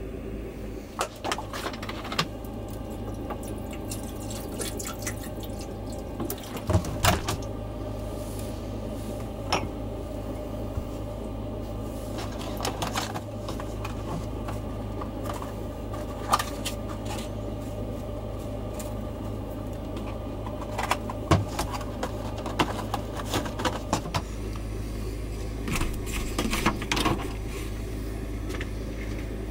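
Gas stove burner running under a kettle, a steady rushing hiss, with scattered clinks and knocks of cups, dishes and cupboard doors.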